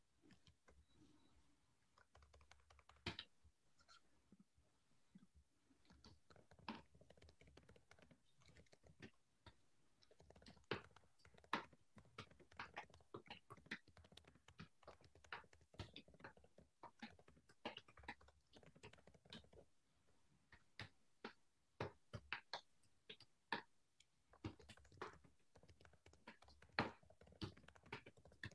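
Typing on a computer keyboard: faint, irregular key clicks, sparse at first and coming thicker from about ten seconds in.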